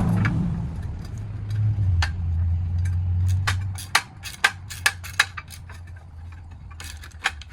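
Hand tools working on metal car parts: irregular metallic clicks and clinks, with a few louder clinks around four to five seconds in. A low rumble runs underneath and stops about four seconds in.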